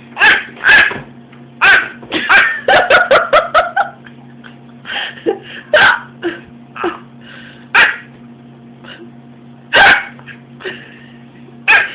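Short, sharp hiccup sounds repeated at irregular gaps, made in imitation of hiccuping, with a quick run of laughter about two seconds in.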